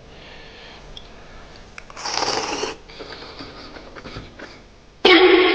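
Slurping of soup from a spoon: a loud, noisy slurp about two seconds in, then a short, louder burst near the end.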